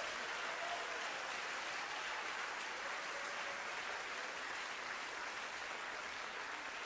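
Theatre audience applauding steadily after a punchline.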